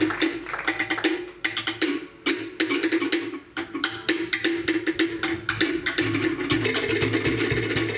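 Cook Islands drum ensemble playing at full tempo: rapid interlocking strikes on wooden pātē slit drums over a steady repeating thud of a deep skin bass drum.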